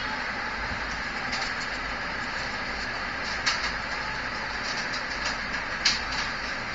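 Steady hissing background noise with a few light taps and clicks, the loudest near the end, as hands press and place pieces of modelling clay on a board.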